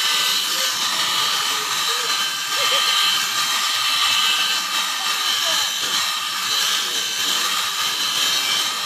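Electric sheep-shearing clippers running steadily, a constant high motor whine as the handpiece cuts through a sheep's fleece.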